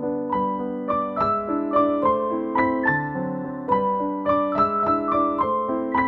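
Background piano music: a melody of struck notes over held lower notes, about three notes a second.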